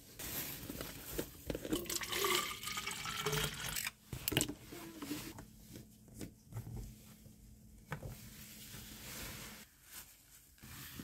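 Water pouring into a plastic squeeze bottle, its pitch rising as the bottle fills. A few short clicks and knocks of the cap being handled follow.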